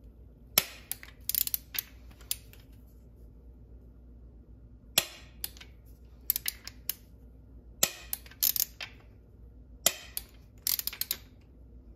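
Sharp metallic clicks and knocks of hand tools working on the engine's rotating assembly during piston and connecting-rod installation. They come in short clusters every second or two, with a quiet gap a few seconds in.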